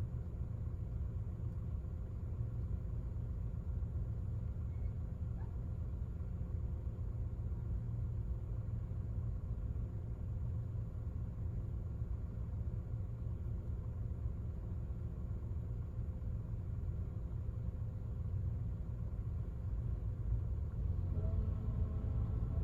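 Honda N-BOX Custom L Turbo's 660 cc turbocharged three-cylinder engine idling in Park with the air conditioning off, a steady low rumble. The owner reports an abnormal noise that recurs periodically at this idle and persists after the dealer replaced the evaporator and other parts.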